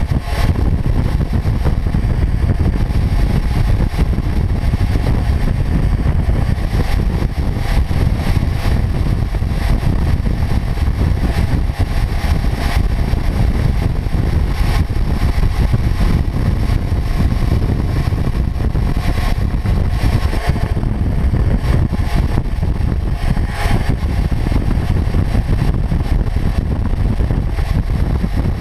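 Kawasaki Ninja 400 parallel-twin motorcycle cruising at steady road speed. The engine and road and wind noise blend into a loud, even, low rumble.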